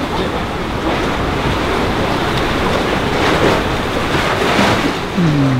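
Steady rush of sea waves, with wind.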